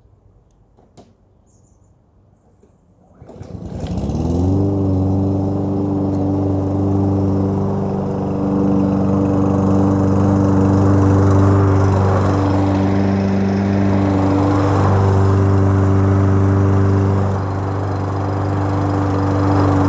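Toro Recycler walk-behind lawn mower's small engine starting about three seconds in. It rises quickly in pitch as it comes up to speed, then runs steadily. A few faint clicks come before it starts.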